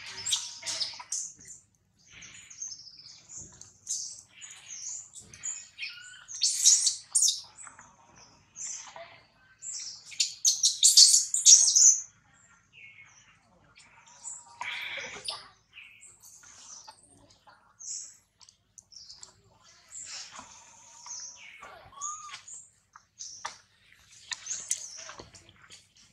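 Repeated short, high-pitched animal chirps and squeals, loudest about seven seconds in and again from about ten to twelve seconds in.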